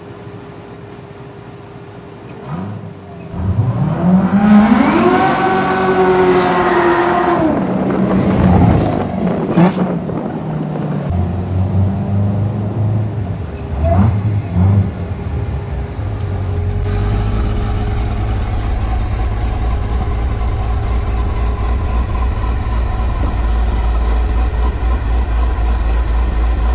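Supercharged V8 of a modified 2016 Corvette Z06 accelerating about three seconds in, its engine note rising and then falling away over several seconds. It then runs at low speed and settles into a steady, low idle for the last ten seconds.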